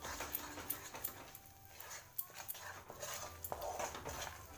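Wooden spatula scraping and knocking against a kadhai while stirring soft khoya paste: a run of irregular scrapes and sharp little clicks.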